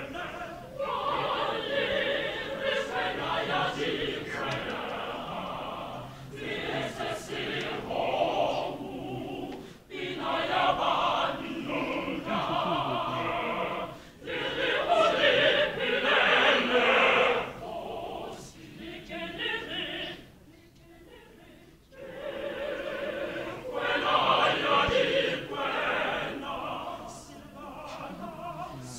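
Mixed choir singing in phrases with short breaks between them, and a near-silent pause of about two seconds a little past the middle before the singing resumes.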